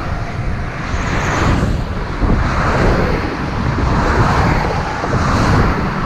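Cars passing close by on a two-lane highway, their tyre and engine noise swelling and fading several times, with wind rumbling on the microphone.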